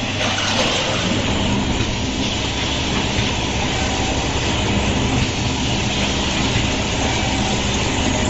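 Small-bag liquid packing machine running steadily: a continuous mechanical clatter over a low hum.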